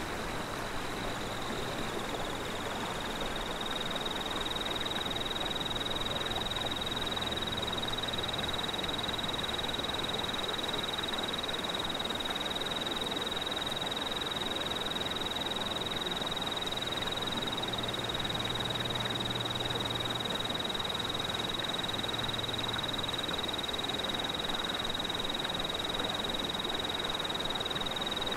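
Night insect chorus: a steady, unbroken high-pitched trill over a soft even hiss.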